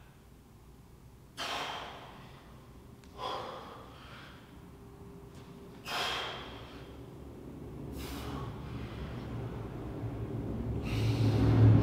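A man exhaling hard with each push-up rep: four sharp breaths, about two seconds apart, each fading quickly. Over the last few seconds a low drone builds up and becomes the loudest sound.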